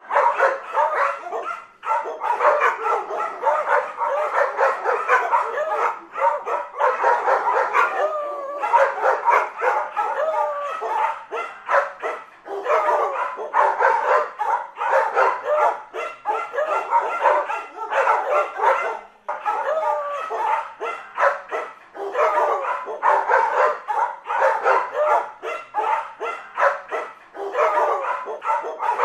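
Several dogs barking rapidly and without let-up, the barks overlapping one another, with brief lulls every few seconds.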